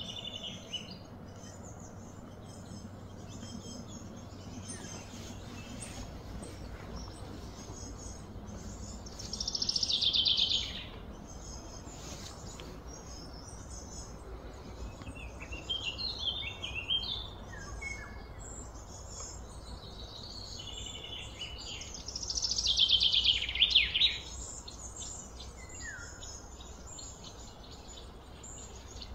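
Outdoor bird calls and chirps over a steady background of ambient noise, with two louder high trilling bursts of song, about ten seconds in and again a little past twenty seconds.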